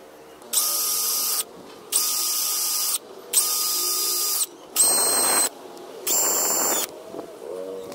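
Cordless drill with a stepped bit boring holes in white PVC pipe: five short runs of about a second each, the motor whining steadily and each run cutting off sharply.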